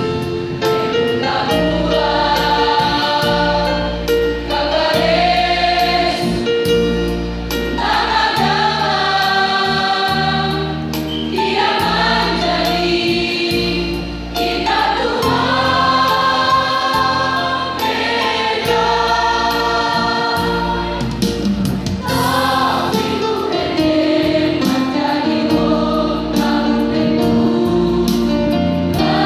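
A large school choir singing together, with many voices holding sustained sung lines. Steady low bass notes sit underneath, changing about once a second.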